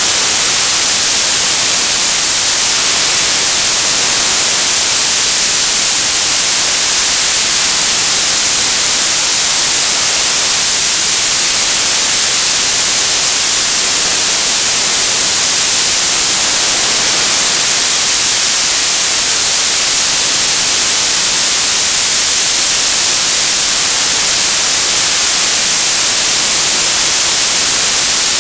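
Loud, steady TV static: an even, unbroken hiss, strongest in the high frequencies.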